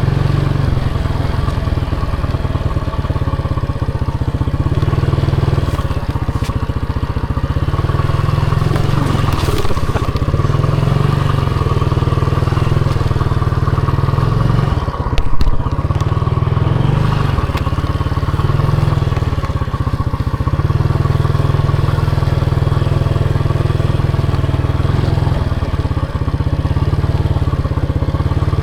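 Motorcycle engine running steadily while being ridden, under a heavy low rumble, with one sharp loud knock about halfway through.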